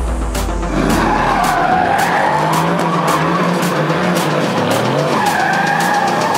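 Mercedes-AMG GT R sliding with its rear tyres spinning: wavering tyre squeal starts about a second in, with the engine running at high revs beneath it, over a steady electronic music beat.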